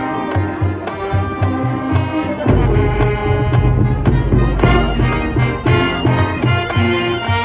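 High school marching band playing: brass chords over a steady beat of low drums. About two and a half seconds in, a heavy low bass enters and holds under the rest.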